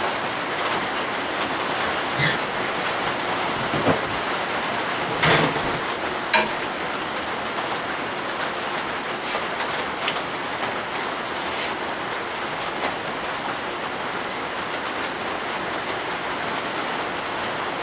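A steady hiss, with a few short knocks and taps about two to seven seconds in as a steel speed square and a level are set against a belt grinder's steel work table.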